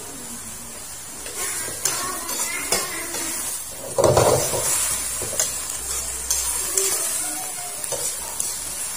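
Genjer greens sizzling in a wok while a metal spatula stirs them, scraping and clinking against the pan, with a louder clatter about four seconds in.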